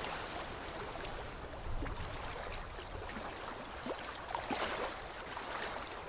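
Steady flowing water, like a stream, with a few short rising chirps over it from about two seconds in.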